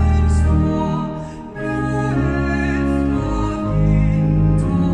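Church organ holding sustained chords under a woman singing a hymn melody, with a short dip between phrases about a second and a half in.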